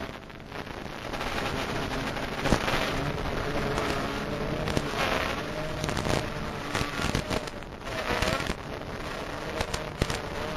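Mini FPV quadcopter in flight: the motors and propellers run with a whine that wavers up and down in pitch, under a rush of wind noise with scattered sharp crackles and knocks.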